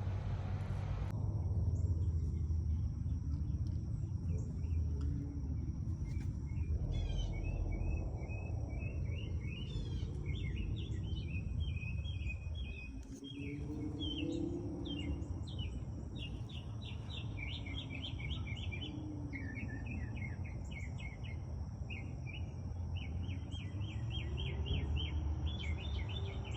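Small birds chirping in rapid repeated trills over a steady low hum, with a faint steady high-pitched tone behind.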